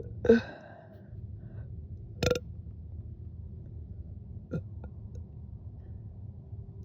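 A woman burping after chugging carbonated sparkling water: one loud, short burp just after the start, then a sharp, short sound about two seconds in and a fainter one near the middle, over a steady low hum.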